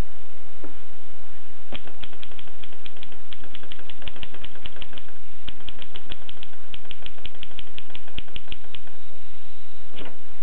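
Keys of a 1920s Erika manual typewriter striking in a rapid, fairly even run of clicks for about seven seconds, then a heavier single strike near the end.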